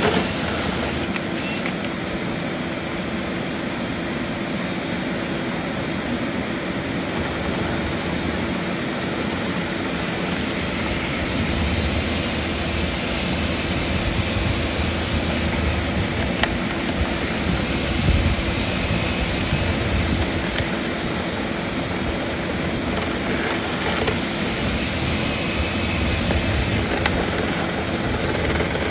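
Dryer vent cleaning equipment running steadily: a motor's drone over rushing air, with a faint high whine that comes and goes a few times.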